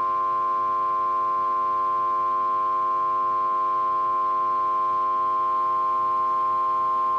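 NOAA Weather Radio warning alarm tone: a loud, steady single-pitched tone near 1 kHz, held without a break, sent ahead of a severe weather warning.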